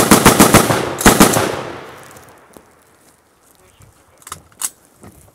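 Two rapid bursts of automatic gunfire at close range, the first of about eight shots and the second of four or five, echoing away over about a second. Two fainter sharp cracks follow near the end.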